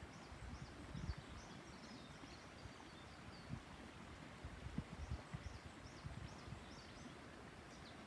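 Small birds chirping again and again in quick, short, high chirps that sweep downward, faint over a steady hiss. A few soft low thumps come about a second in and again around five seconds in.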